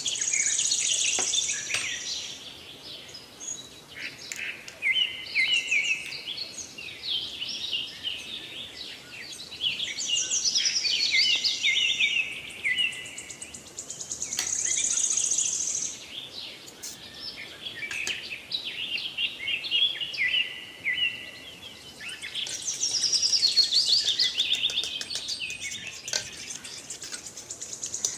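Birds chirping and twittering, in high-pitched clusters of short calls and trills that come and go.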